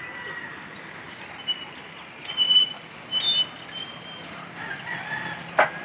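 Steady outdoor street background noise, broken by a few short high-pitched chirps around the middle and a single sharp click near the end.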